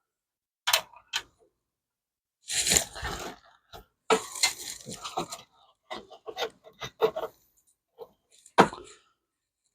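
Irregular clinks, rattles and scrapes of metal dashboard parts and gauges being handled and pried apart by hand, with a longer scraping rattle about three seconds in and a busy cluster of knocks around the middle.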